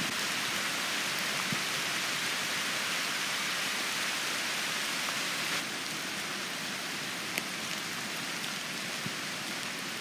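Steady rain falling, an even hiss with a few scattered drip ticks; it drops a little in level about halfway through.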